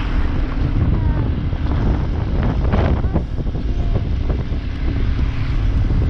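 Wind rushing over the microphone on a moving motorcycle, a loud steady rumble, with the motorcycle's engine running underneath.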